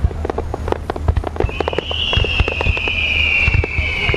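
Star mine fireworks barrage: a rapid, dense string of launches and bursts, several bangs a second. About a second and a half in, a high whistle joins and slowly falls in pitch.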